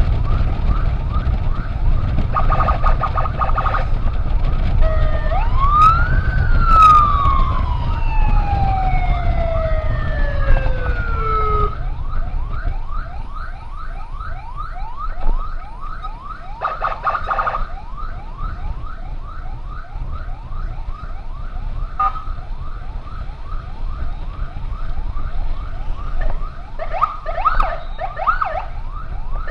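Sirens of an ambulance escort: a fast repeating yelp of several sweeps a second runs throughout. About five seconds in, a second siren joins with one long wail that rises quickly, then slides slowly down before cutting off near the twelve-second mark. A low riding rumble sits beneath and eases after that point.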